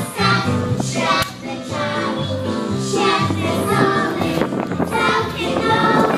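A group of young girls singing together into stage microphones, amplified over a music accompaniment with a low bass line that moves in steps.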